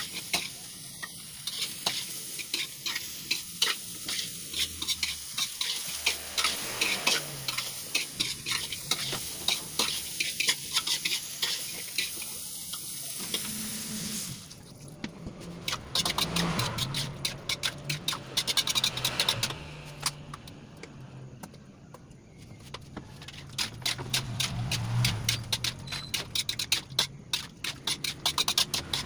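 Metal spatula scraping and tapping against an aluminium wok as onion, garlic and mushrooms sizzle in hot oil. About halfway through, the sizzle dies down as water and sauce go into the pan, and the quick stirring strokes go on.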